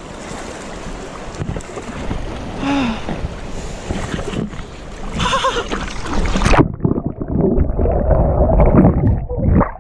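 Rushing river water and wind on an action camera's microphone, with a couple of short cries. About two-thirds of the way in, the camera plunges under the ice-cold snowmelt water: the high hiss cuts off suddenly and the sound turns muffled and low, with bubbling.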